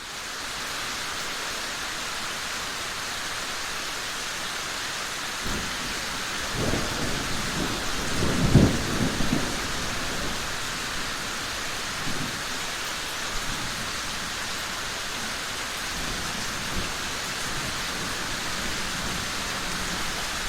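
Steady rain falling, fading in from silence at the start. Thunder rumbles from about five seconds in, building to its loudest at about eight and a half seconds, then a few fainter rolls follow.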